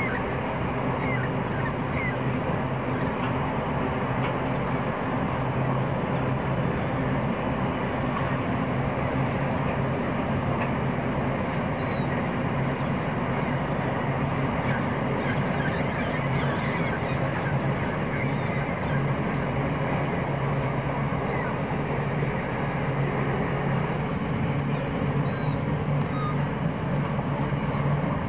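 Diesel-electric locomotives hauling a long freight train slowly over a viaduct, heard from a distance as a steady low engine drone over a constant rumble. Short high bird chirps come now and then.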